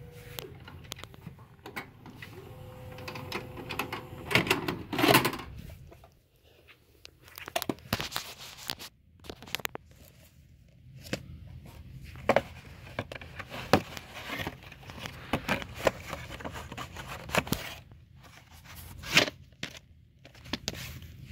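Handling noise from a VHS cassette and its plastic-covered case being picked up and turned in the hands: irregular clicks, scrapes and crinkling, loudest about four to five seconds in and again near the end.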